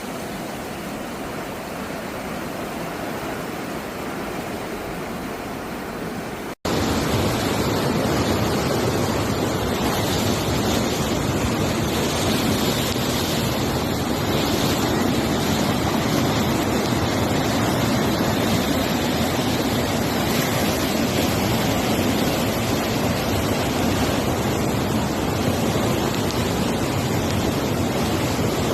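A steady rushing noise, then a sudden cut about six and a half seconds in to a louder, steady rush typical of fast-flowing floodwater.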